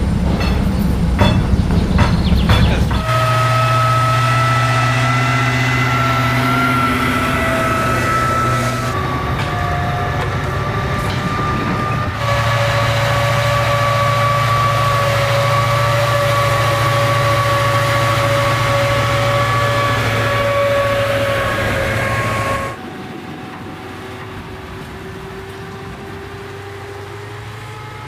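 M2 Bradley fighting vehicle's diesel engine running under way with a steady high whine from its drivetrain, the pitch shifting a few times. It opens with a run of sharp knocks and is quieter for the last few seconds.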